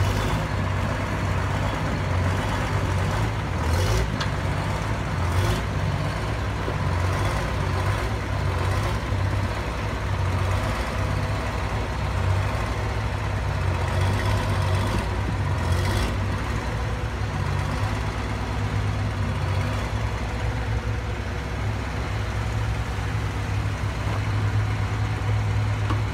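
Warner Swasey 45-ton truck crane's engine running steadily as the crane drives slowly, with a few short clicks over the drone.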